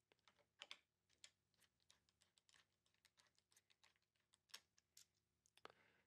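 Near silence with a few faint, scattered clicks and taps from small camera-mounting hardware and a screwdriver being handled.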